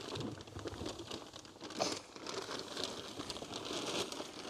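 Paper sack crinkling and rustling as dry conductive cement powder is tipped out of it into a hole, with irregular crackles throughout.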